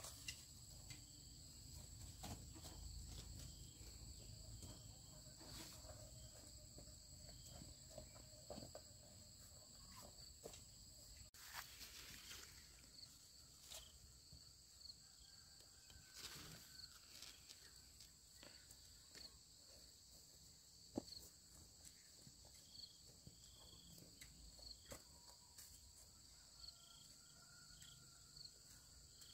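Faint, steady high-pitched insect drone, with scattered soft footsteps and rustles.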